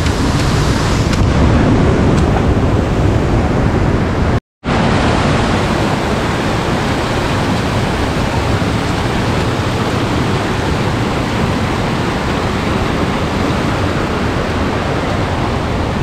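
Steady roar of a waterfall: a dense, unbroken rush of falling water. It cuts out completely for an instant about four and a half seconds in.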